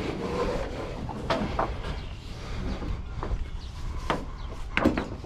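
A low steady rumble with scattered sharp knocks and clunks, a pair of them close together near the end.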